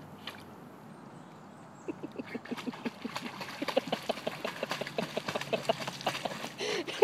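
Dog splashing and snapping at the water in the shallows of a lake, a rapid irregular run of splashes and plops starting about two seconds in and growing busier.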